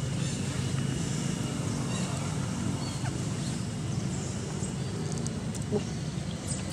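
Steady outdoor background noise: a low rumble with faint, scattered high chirps and ticks over it.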